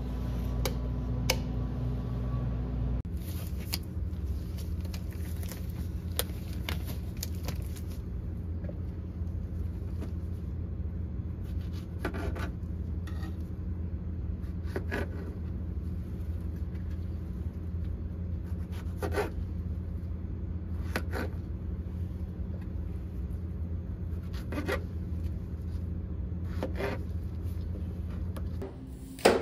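Kitchen knife cutting on a cutting board, with a sharp chop every few seconds, over a steady low hum.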